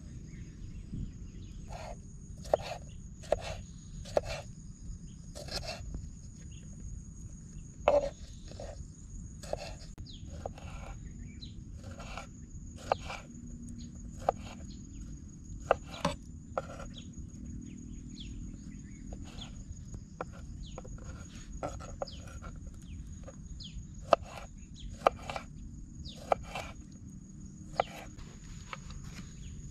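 A steady high-pitched insect drone, with a low rumble beneath it, broken by many short sharp clicks and knocks at irregular intervals.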